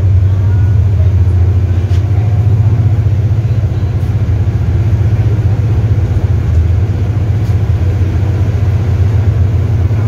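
Mercedes-Benz OF-1721L BlueTec 5 bus's OM-924 LA four-cylinder inline Euro V diesel engine running steadily, with a deep, even low note.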